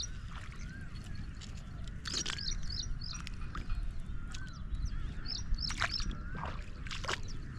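Birds calling: a high, quick call repeated in sets of three, and a lower wavering call several times, over a steady low rumble of wind or water with a few sharp knocks.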